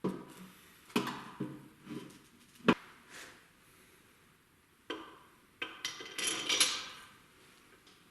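Metal clanks and clinks of bolts and hand tools being handled while cylinder heads are fitted to an engine block, with one sharp knock a little under three seconds in and a jingling cluster of clinks near the end.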